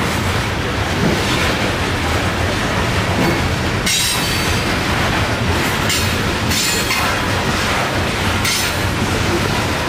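Loaded coal hopper cars rolling past on steel rails: a steady rumble and clickety-clack of the wheels, with several short high wheel squeals from about four seconds in.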